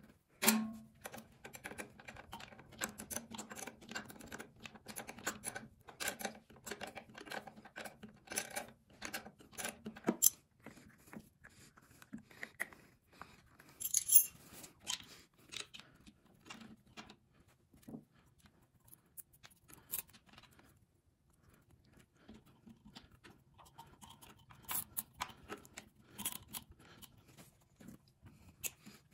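Irregular clicks and metal clinks of hand work with a 10 mm wrench on the battery terminal bolts, fitting a trickle-charger pigtail. The clicking is densest in the first ten seconds and turns sparse and quieter after that.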